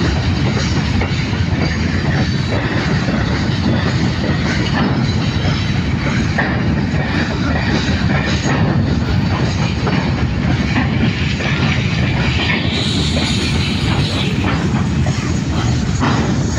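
Long freight train of covered hopper wagons rolling past close by: a steady, loud rumble of steel wheels on rail with repeated clacks as the wheels cross rail joints. The sound turns brighter and hissier for about two seconds, starting some thirteen seconds in.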